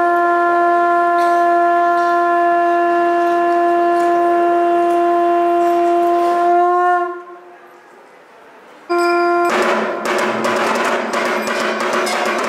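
Conch shell (shankha) blown in one long, steady blast of about seven seconds that wavers and fades at the end. After a short pause a second blast starts, and about half a second later drumming and ringing bells break in with it.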